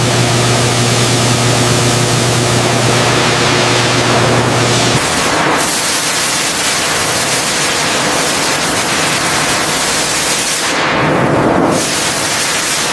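Loud, steady hiss of spraying, with a low machine hum beneath it that cuts off about five seconds in; the spray is of chemical cleaning agents applied to strip oil and corrosion from the aircraft's aluminium.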